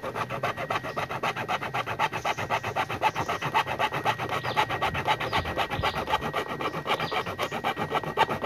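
Hacksaw cutting through a motorcycle's rear fender, sawn back and forth in quick, even strokes of about five a second.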